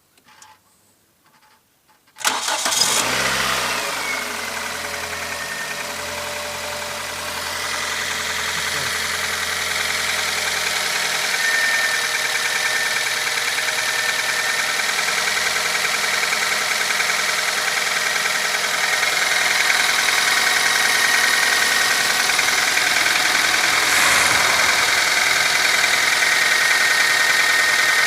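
Nissan QG18DE 1.8-litre four-cylinder petrol engine started cold about two seconds in, catching at once and then running steadily at idle. The knock on a cold engine that the owner is recording is there to be heard.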